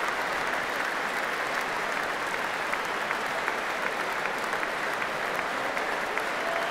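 Stadium crowd of thousands applauding, a steady wash of clapping.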